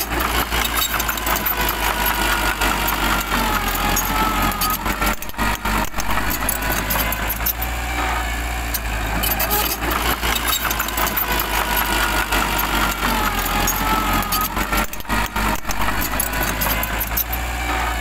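Mini bulldozer's diesel engine running steadily with a low rumble while it pushes soil, with a wavering whine above it. The same stretch of sound repeats about every ten seconds.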